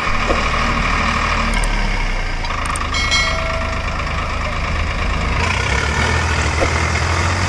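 Diesel engines of a Swaraj 744 FE tractor stuck in deep mud and the Mahindra Arjun 555 tractor hitched to pull it out, both running; a little over two-thirds of the way in the engine note shifts higher and gets stronger.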